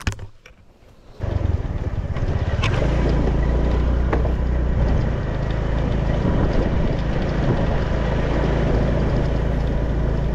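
A motor running steadily with a low hum and rushing noise, coming in abruptly about a second in after a quiet moment.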